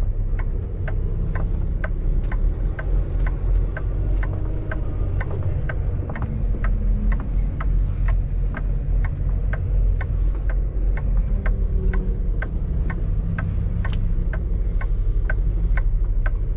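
Semi truck's diesel engine running at low speed, heard from inside the cab while reversing into a parking spot, with a steady rapid clicking of about two to three clicks a second over the engine rumble.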